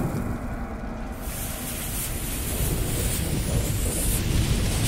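Fire and burning-fuse sound effects: a steady low rumble under a hiss that grows brighter about a second in, building toward an explosion.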